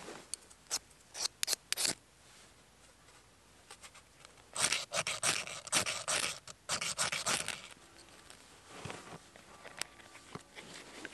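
Steel striker scraped hard down a ferrocerium rod to throw sparks onto frayed jute-twine tinder: a few sharp scrapes, then a long run of rapid strokes about four seconds in, and a few fainter ones near the end.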